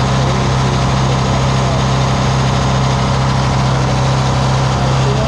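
Kenworth semi truck's diesel engine running steadily at a raised idle, just restarted after running out of fuel, while air bubbles are still being worked out of the fuel system.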